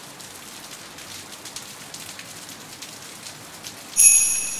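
Steady rain sound ambience. About four seconds in, a single bright chime strikes and rings out with several high tones, fading over about a second.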